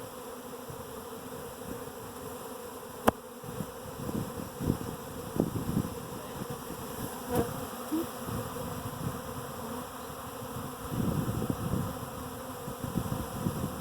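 A honeybee swarm clustered on a branch, buzzing steadily at close range, with individual bees swelling loud as they fly past. A single sharp click about three seconds in, and the buzzing grows louder near the end.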